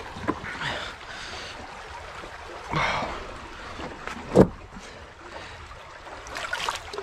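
River water moving and lapping among rocks, with scuffs and scrapes of footsteps on rock and one sharp knock about four and a half seconds in, the loudest sound.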